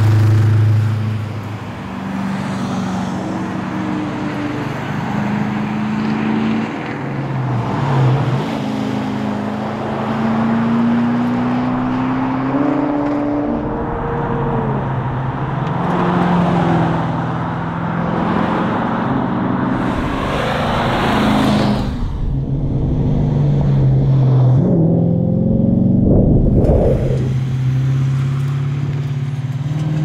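HSV VX Clubsport's 5.7-litre LS1 V8 driving past under acceleration. Its pitch climbs and falls repeatedly as it revs through the gears, over a series of drive-bys.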